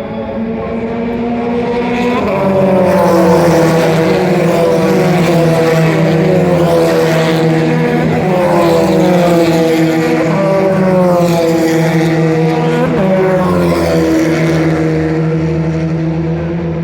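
Formula Nacional single-seater race cars passing at speed down the straight, one after another, engines at high revs. The engine note drops in pitch as each car goes by, and the level rises about two seconds in.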